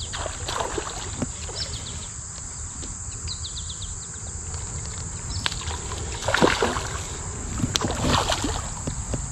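A hooked trout splashing and thrashing at the water's surface as it is reeled in, with two louder splashes in the second half. A steady high insect drone runs underneath.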